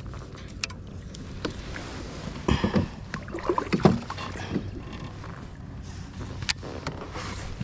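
Scattered knocks, clicks and rustles of handling in a plastic fishing kayak while a small catfish is held on a hooked jerkbait, with a busier clatter a few seconds in.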